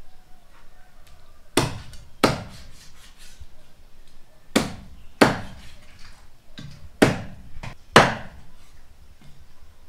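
Cleaver chopping raw meat on a thick round wooden chopping block: six sharp chops, the first four in two quick pairs.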